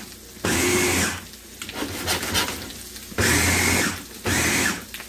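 Ninja electric food chopper pulsed twice, each burst of the motor whirring for about a second, as it chops ham, mayo and pickles into ham salad.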